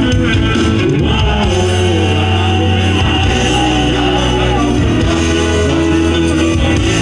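Live rock band playing a song loudly, with guitars and bass and some singing.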